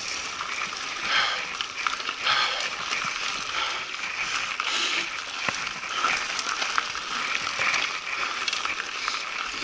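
Mountain bike tyres rolling over loose gravel: a steady crunching hiss peppered with small clicks of stones.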